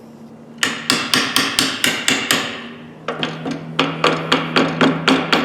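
Hammer striking the rust-frozen pliers in a vise, rapid metallic blows at about five a second in two runs with a short pause between them, to break loose the seized pivot joint.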